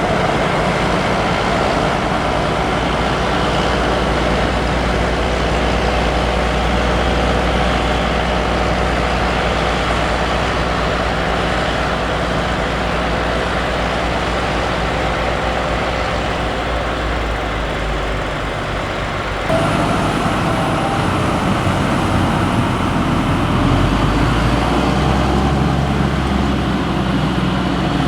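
Heavy diesel farm machinery running steadily under load: the engine noise of tractors, trucks or the forage harvester at work in the maize harvest. The sound changes abruptly about two-thirds of the way through, then carries on.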